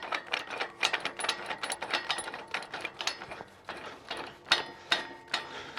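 Irregular metallic clicking and clinking, several clicks a second, as the grapple's threaded adjustment link is turned by hand and wound all the way down.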